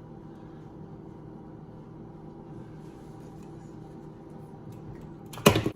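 A steady low hum with a few fixed tones, then one sudden loud knock near the end.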